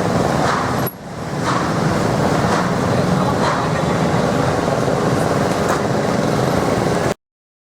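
Street traffic noise, a steady mix of passing vehicles, with faint voices in the background. It dips briefly about a second in and cuts off suddenly to silence near the end.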